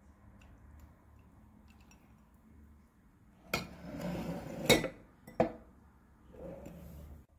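A drinking glass with ice cubes being handled: two or three sharp glassy clinks, the loudest just past halfway, among rattling and shuffling noise.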